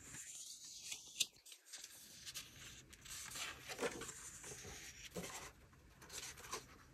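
Faint rustling and sliding of loose paper sheets as hands leaf through a stack of hole-punched A5 planner inserts, with a few light ticks.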